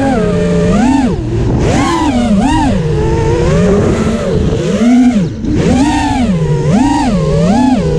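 The four Emax 2306RS 2400KV brushless motors of a DQuad Obsession FPV quadcopter whining. Their pitch rises and falls about once a second as the throttle is punched and eased, with a brief drop about five seconds in.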